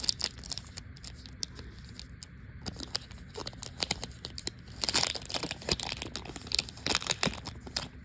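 Wrapper of a Topps Heritage baseball card pack being torn open and crinkled in the hands, with irregular crackling and rustling, busiest about halfway through.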